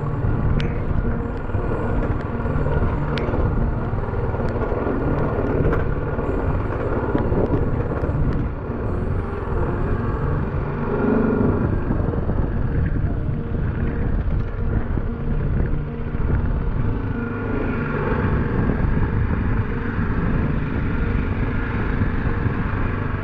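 BMW G310GS motorcycle's single-cylinder engine running steadily while the bike rides along a rough, wet dirt lane.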